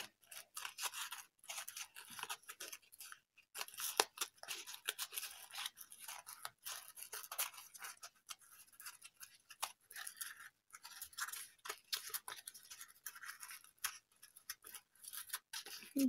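Strips of glittery foamiran craft foam rubbing and scraping against each other as they are woven by hand: a run of short, irregular scratchy rustles.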